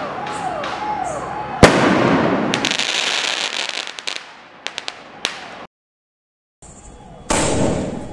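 A 2-inch sky shot aerial shell bursts with a loud bang about a second and a half in. A spell of dense crackling and a few scattered pops follow. After a short dropout, the next shell launches near the end with a short whoosh as it climbs.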